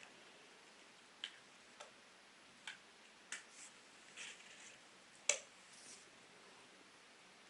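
Scattered light clicks and taps at uneven intervals over a faint quiet background, the loudest about five seconds in.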